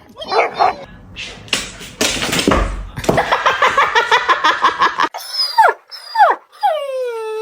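A dog yipping and whining: a quick string of yips at about six a second, then a few falling whines, the last one long and sliding down in pitch.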